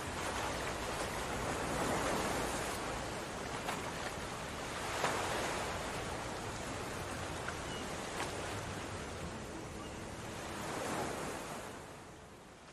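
Thick chicken and turnip curry bubbling and sizzling in a pot: a steady hiss with a few small pops. It fades out near the end.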